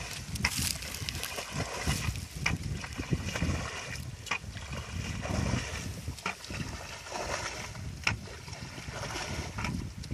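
Plastic bucket scooping muddy water and tipping it out, splashing and sloshing about every two seconds as a shallow pool is bailed down by hand.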